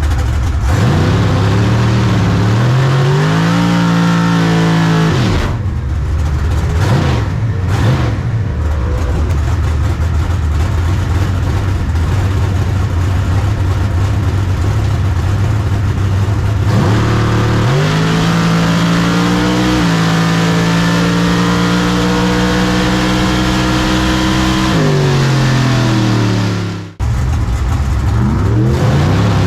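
Drag racing car engines at full throttle: the pitch climbs and holds high, drops off, then climbs and holds again, with a sudden break near the end where another run cuts in.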